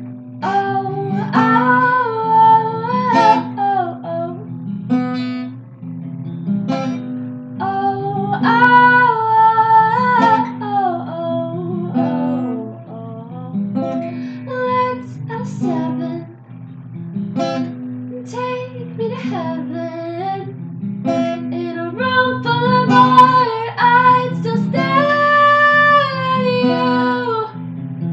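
A woman singing to her own strummed acoustic guitar, holding several long notes.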